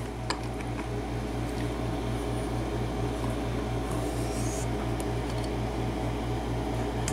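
Steady low motor hum, pulsing about five times a second, with a few faint metallic clicks of a lock pick working the pins of a euro cylinder lock.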